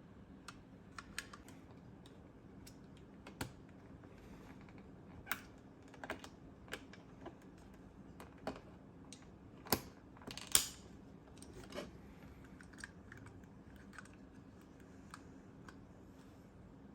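Irregular small clicks and taps of hard plastic parts being handled and fitted together, a dozen or more spread unevenly, the loudest a little past the middle.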